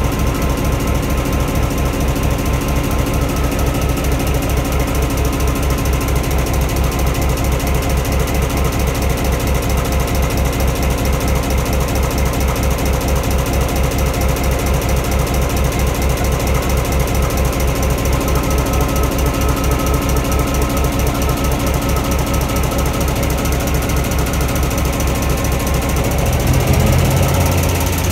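EMD 567 two-stroke diesel engine running at idle with its top covers open, the rocker arms and valve gear clattering in a fast, even rhythm. Near the end a deeper hum joins in and it gets briefly louder.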